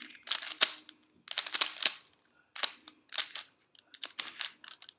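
Plastic puzzle cube being turned fast by hand: runs of sharp clacks as its layers snap round, several quick turns at a time with short pauses between.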